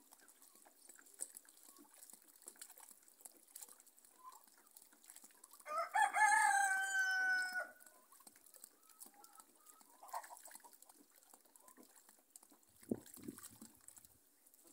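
A rooster crows once, a single long call of about two seconds some six seconds in. Behind it are the faint rustle and splash of hands washing pigeon peas in a basin of water.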